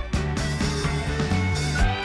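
Background rock music with guitar, a bass line and a steady drum beat.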